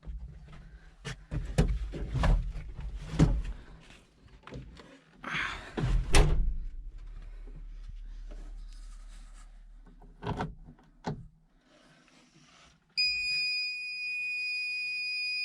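Clunks, knocks and door-like thunks of an excavator's cab door and fittings being handled, the loudest in the first six seconds. About thirteen seconds in comes a steady electronic beep lasting about three seconds, a cab warning buzzer.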